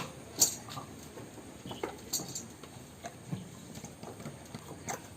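A goat shuffling and mouthing as it is dosed by syringe with a bitter herbal drench: scattered knocks, taps and clicks, the sharpest about half a second in.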